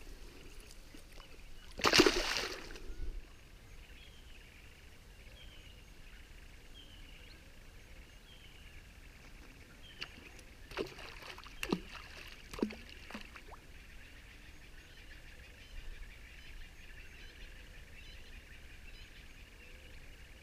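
A loud splash about two seconds in as a small sharptooth catfish (barbel) is dropped back into the river. Later a few short, sharp plops, some dropping in pitch, as the caller rod (roepstok) is worked against the water surface to call barbel; faint chirps sound in the background.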